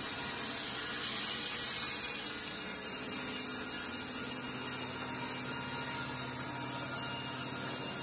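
Horizontal band sawmill running and cutting a log: a steady machine hum with a strong high hiss from the blade in the wood.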